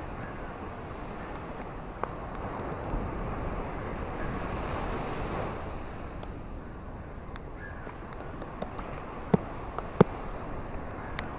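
Steady rain hissing, with scattered sharp taps of drops, two louder ones near the end.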